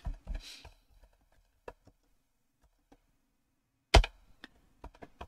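Computer keyboard typing: a few scattered keystrokes, one loud sharp key strike about four seconds in, then a quick run of keystrokes as a password is entered.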